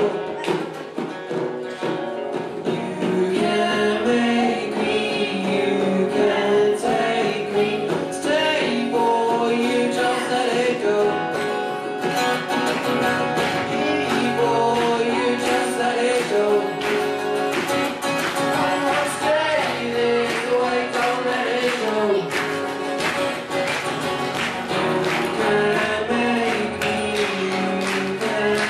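Live acoustic pop-rock song: two steel-string acoustic guitars strummed in a steady rhythm under a young male lead vocal.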